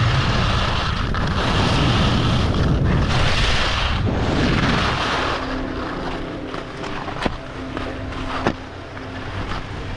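Wind buffeting a GoPro action camera's microphone, together with skis sliding over groomed snow during a downhill run. The rushing noise dies down about halfway through, leaving a quieter hiss with two sharp clicks near the end.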